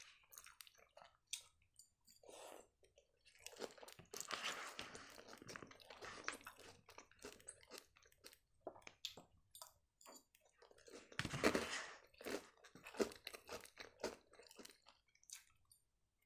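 Close-miked chewing of Caesar salad, crunching with wet mouth sounds in quick crackles, louder for a moment about four seconds in and again near eleven seconds.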